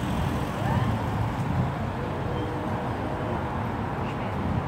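Outdoor street background: a steady low rumble of traffic with faint voices of passers-by.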